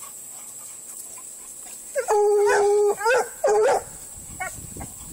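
Bluetick coonhound baying: one long, pitched bay about two seconds in, then two shorter bays in quick succession.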